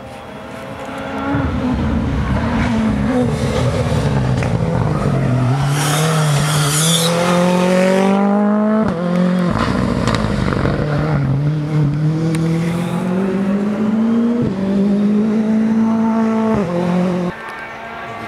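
Rally car's engine under hard acceleration, revs climbing and then dropping sharply at each gear change. It grows loud about a second in and falls away near the end.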